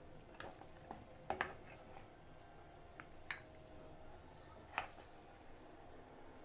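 Serving spoon knocking and clicking against the bowl and pan about six times while oxtail stew is ladled into the bowl, with faint wet squelches of the sauce; the loudest knocks come about a second in.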